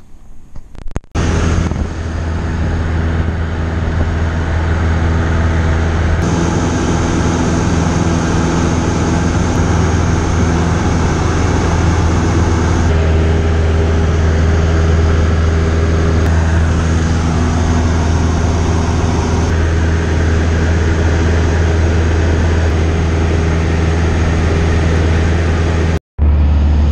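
Cessna 172's piston engine and propeller droning steadily in flight, heard inside the cabin as a loud low hum. It starts suddenly about a second in after a quieter stretch, shifts slightly in tone a few times, and drops out briefly near the end.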